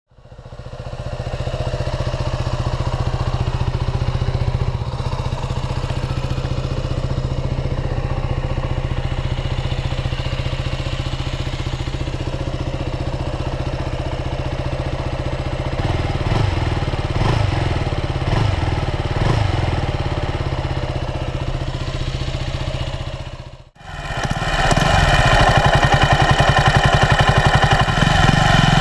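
Stock exhaust of a 2012 KTM 125 Duke, its single-cylinder four-stroke engine running steadily with some rises and falls in pitch around the middle. Near the end it drops out for a moment and comes back louder and fuller.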